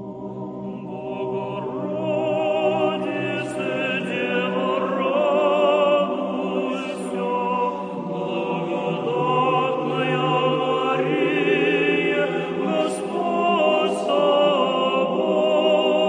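Choir singing long, held notes with vibrato.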